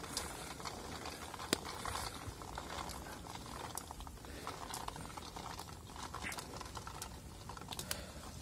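Green grapes sliding and tumbling from a steel colander into a pot of simmering masala: a steady patter of small clicks, with one sharper click about a second and a half in.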